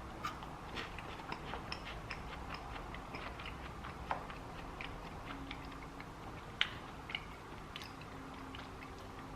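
A person chewing a green Japanese Kit Kat: faint, irregular crisp crunches of the wafer, with a couple of sharper crunches about four and six and a half seconds in.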